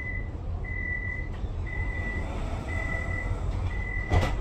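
Tram door-closing warning signal: a steady high beep repeating about once a second, five times, over the low hum of the tram, then a loud knock near the end.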